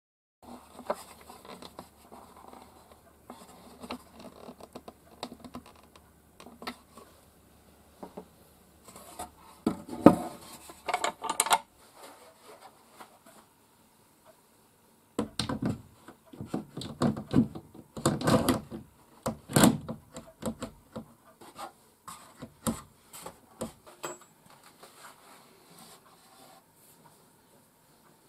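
A cloth rubbing wax onto a wooden box in scratchy back-and-forth strokes. Then come a series of sharper wooden knocks and bumps as a wooden shelf is handled.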